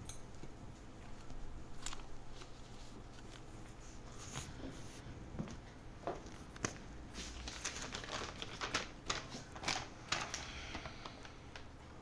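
Paper rustling and crinkling as sheets of paper are handled, in irregular bursts that get busier in the second half.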